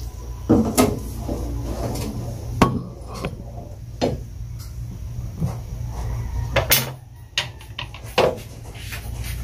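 A long spatula stirring soup in a large stainless-steel stockpot, knocking against the pot's sides and rim at irregular intervals about once a second, over a steady low hum.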